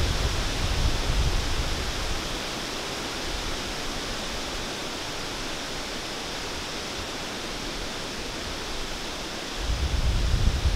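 Wind through the woods: a steady hiss of stirring leaves. Low wind buffeting on the microphone during the first two seconds and again shortly before the end.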